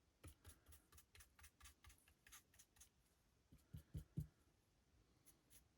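Faint, quick scratchy ticks of a stiff paintbrush being dry-brushed over the raised spots of a 3D-printed miniature, about four or five strokes a second, with a few soft low knocks about four seconds in.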